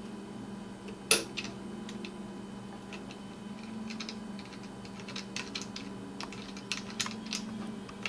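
Scattered light clicks and taps of a shotgun battle rail's metal clamps and bolts being handled and lined up on the barrel, with one sharper click about a second in. A steady low hum runs underneath.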